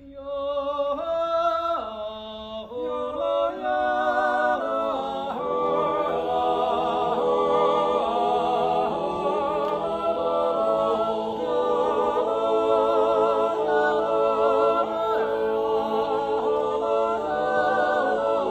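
An Appenzell Zäuerli, a wordless natural yodel sung a cappella by six men. A single lead voice opens alone with stepping notes, and about five seconds in the others join in, holding a full chord beneath the yodelled melody.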